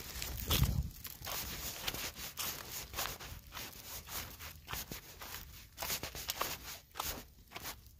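Footsteps crunching on a loose gravel driveway, a steady walking pace of about two steps a second.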